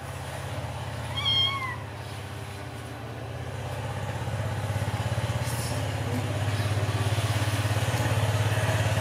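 A kitten gives one short, high meow about a second in. Under it a steady low engine hum runs and grows louder through the rest.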